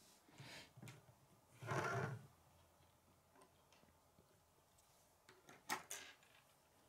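Plastic K'nex model pushed across a wooden tabletop, with a short scraping slide about two seconds in after a couple of softer scuffs. A few sharp plastic clicks come near the end.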